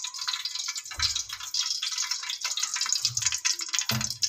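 Cooking oil (ghee) heating in an aluminium pot, with a steady crackling sizzle. A few dull knocks from the spoon or pot come about a second in, about three seconds in and near the end.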